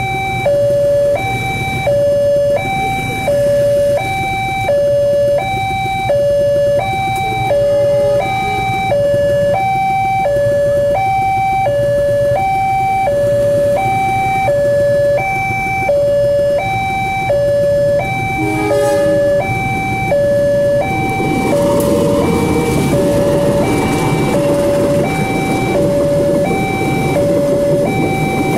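Level-crossing warning alarm, an electronic two-tone bell ('genta') played through a horn loudspeaker, alternating high and low tones about once a second. It warns that a train is approaching. From about two-thirds of the way through, the rumble of a passenger train passing over the crossing rises under it.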